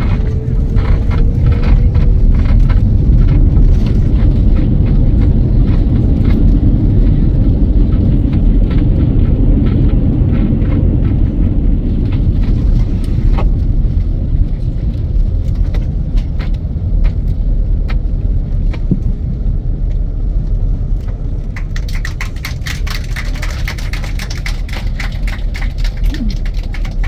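Loud, steady low rumble in the cabin of an Airbus A330 on the ground, typical of the landing roll: engine and runway rumble easing off from about ten seconds in, with cabin fittings rattling throughout and more busily near the end.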